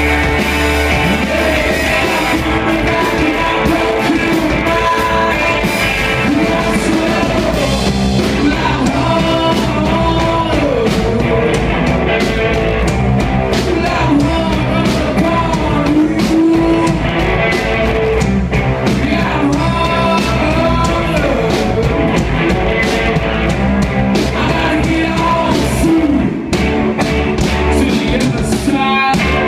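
A live rock band playing: a singer over distorted electric guitars, bass and drums.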